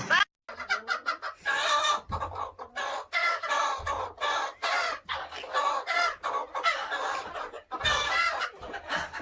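Domestic fowl clucking: a run of short repeated calls, about one or two a second, beginning just after a brief cut.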